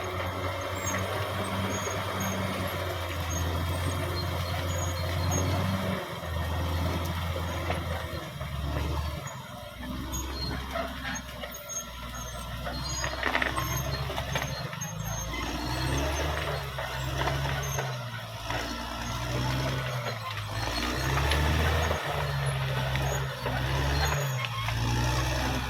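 Caterpillar D6R XL bulldozer's diesel engine running under changing load as it works. The low drone rises and falls in pitch and level several times, with a few short knocks.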